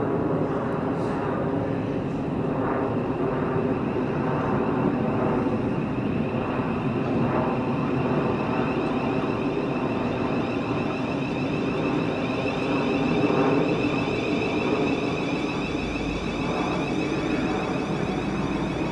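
Thameslink Class 700 (Siemens Desiro City) eight-car electric multiple unit running into the platform and slowing to a stop, with a steady rumble and a high whine that grows stronger about a third of the way in.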